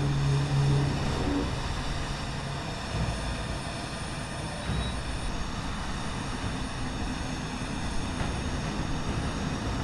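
Engine noise on an airfield apron: the diesel of an M142 HIMARS rocket launcher running, its low drone strongest in the first second and a half, over a steady bed of engine noise with a faint high whine.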